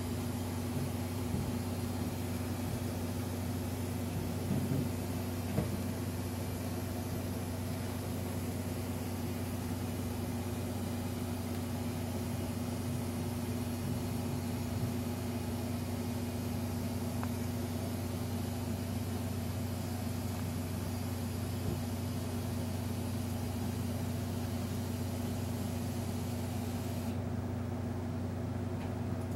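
Steady low mechanical hum, with a few faint knocks in the first six seconds. The hiss above it drops away near the end.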